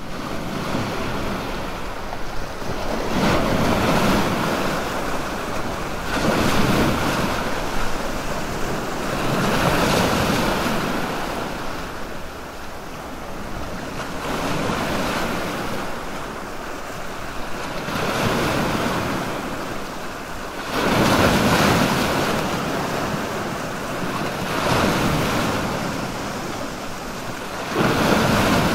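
Sea waves washing in at a fishing harbour: a steady wash of water with swells that rise and fall every three to four seconds.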